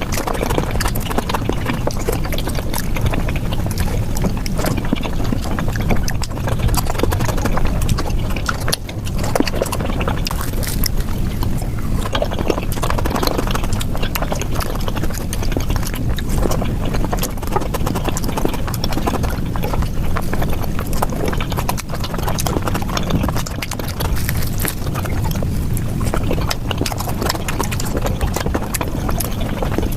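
Close-miked eating sounds played back at high speed: chewing and lip smacks of someone eating flatbread with curry, sped up into a dense, rapid, unbroken patter of clicks.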